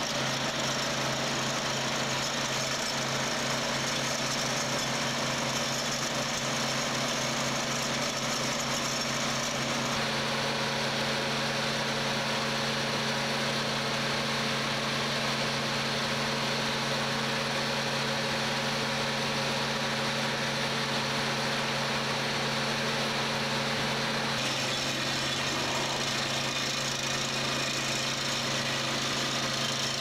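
Diesel engine of a barge-mounted lattice-boom crane running steadily at idle, a continuous low hum whose tone shifts slightly about ten seconds in and again later on.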